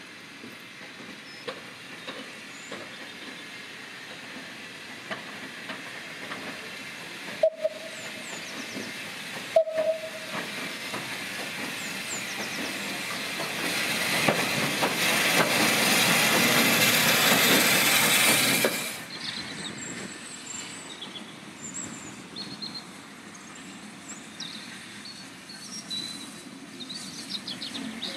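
Steam locomotive hissing steam. The hiss swells to a loud blast lasting about five seconds past the middle, then cuts off suddenly. Two short sharp pips come earlier, and faint high chirps follow.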